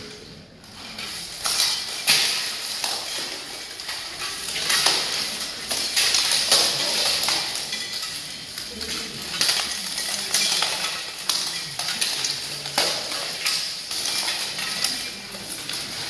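Plate armour clattering and clanking as two armoured fighters spar, with a steady run of metallic rattles and sharper weapon strikes on armour every second or two.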